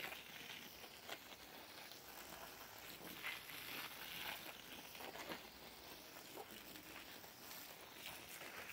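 Garden hose spray nozzle hissing faintly as water patters onto soil and leaves, with a few light clicks.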